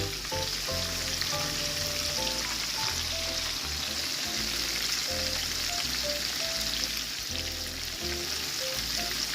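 Cornmeal-battered shrimp frying in hot oil and butter in a pan: a steady sizzle, with background music under it.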